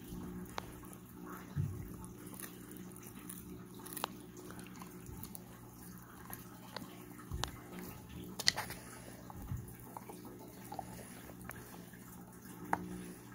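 Husky chewing a hard stick chew treat with its side teeth: irregular clicks and crunches of teeth on the chew, with a few soft low thumps.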